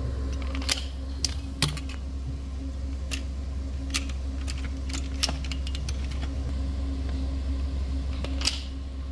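Scattered sharp clicks and taps from handling a rifle and its magazine, over a steady low hum of ventilation.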